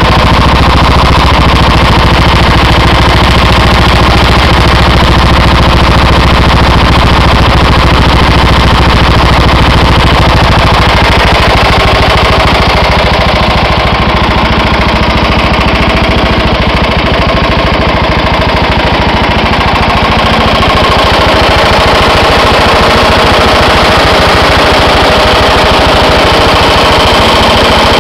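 Vehicle engine running with a loud, rapid, continuous clatter, the persistent strange noise of unknown cause. The low hum under it drops a little about eleven seconds in.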